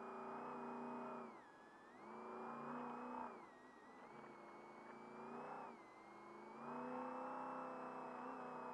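Trophy truck's race engine heard on board, surging on the throttle and easing off three times, its pitch rising and dipping with each lift, with a high whine that follows the engine speed.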